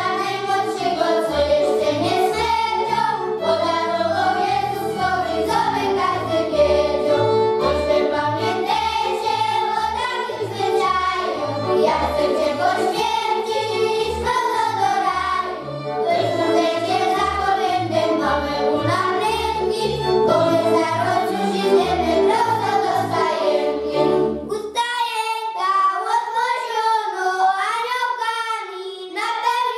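Children's choir singing to a folk string band of violins and plucked double bass. About 25 seconds in the instruments stop and the children sing on alone.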